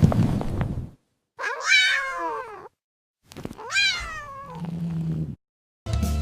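A cat meowing twice: two drawn-out calls, the first sliding down in pitch, the second rising and then falling. Music starts near the end.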